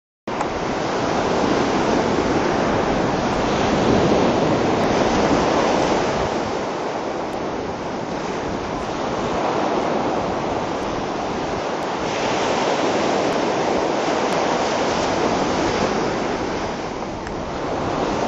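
Ocean surf with wind, a steady rush of noise that slowly swells and eases over several seconds.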